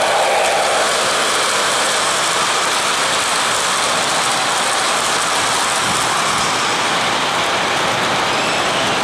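O-gauge model train, a Weaver Chessie System GE U25B diesel pulling loaded coal hoppers, rolling past close by: a steady noise of metal wheels running on the track.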